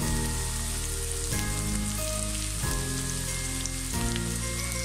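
Chopped onions sizzling steadily as they fry in hot oil in a pan.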